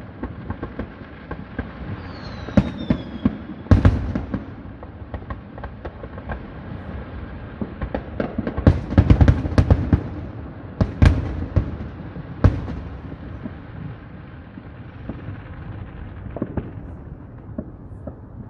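Fireworks display: aerial shells bursting in a string of bangs and crackles, with a falling whistle about two seconds in and a rapid flurry of bangs around nine seconds in, thinning out near the end.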